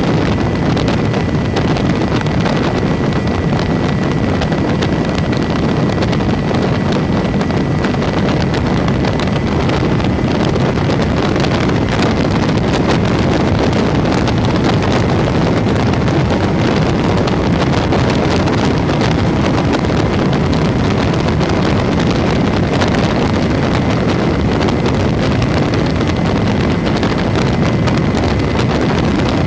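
Steady, loud rush of wind over the microphone of a phone camera riding on an RC airplane in flight, with a faint high steady tone that fades out about a third of the way through.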